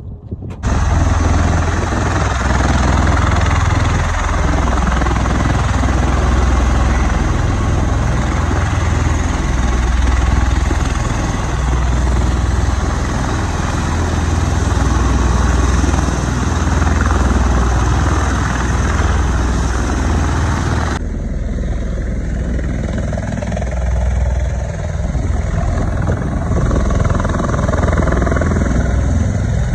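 V-22 Osprey tiltrotor running on the ground: a loud, low, pulsing rotor throb under a steady rushing noise. The hiss above it drops away suddenly about 21 seconds in, while the throb goes on.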